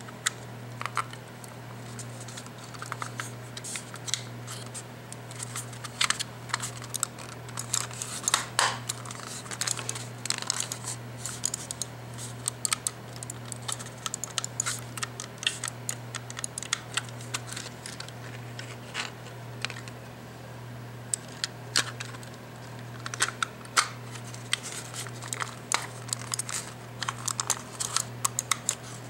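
Logitech G500s gaming mouse's buttons clicked over and over by hand: many short, sharp plastic clicks at an uneven pace.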